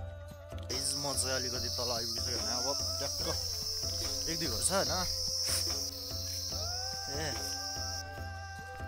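A steady, high insect buzz that starts just under a second in and cuts off suddenly near the end, heard over background music with a melody and a regular beat.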